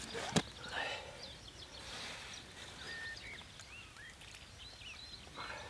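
Songbirds singing: many short high chirps and whistles. A single sharp click about half a second in.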